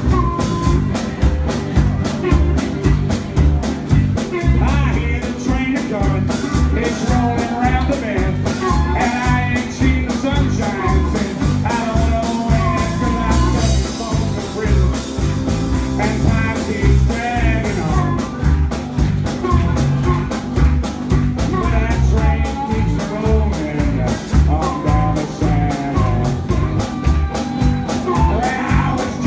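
Live blues band playing: drum kit keeping a steady beat, electric bass, and harmonica, with a man singing into a microphone.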